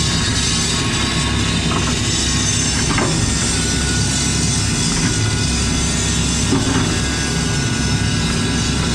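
Excavator's diesel engine running steadily under working load, heard from inside the cab, with a few faint knocks from the machine as it digs.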